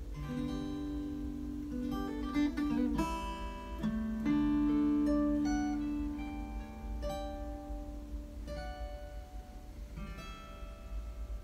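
Acoustic guitar played fingerstyle: picked notes and chords ringing into each other, fuller in the middle and thinning out toward the end.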